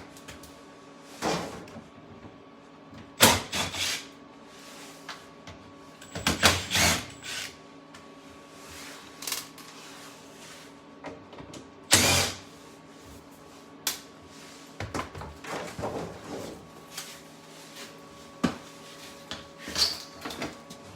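Scattered knocks, clicks and rattles of hands working wiring at an electrical breaker panel, the loudest two about three and twelve seconds in, over a faint steady electrical hum.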